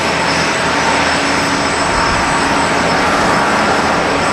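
Steady jet whine over a constant rush of noise from a Boeing 747-400D during pushback.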